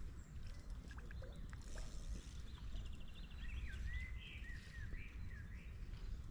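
Wind rumbling on the microphone, with songbirds chirping and whistling: a quick trill about three seconds in, then several short whistled calls.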